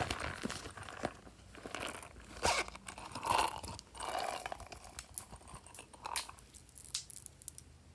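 Silicone pop-it fidget toy pressed and squeezed by fingers, giving a run of soft pops and crackles, loudest about halfway through, then a few light ticks near the end.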